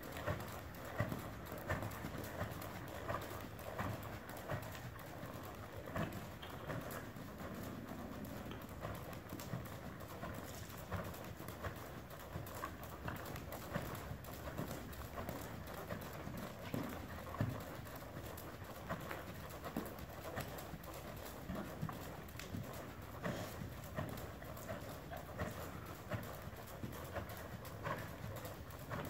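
Rhythmic hoofbeats of a bay horse trotting on the sand footing of an indoor arena, a steady run of soft thuds.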